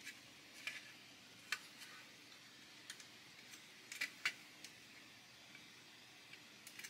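Faint scattered clicks of small plastic model-kit parts and tweezers as a tiny support leg is pushed into place on a plastic trailer chassis, with a cluster of clicks around four seconds in.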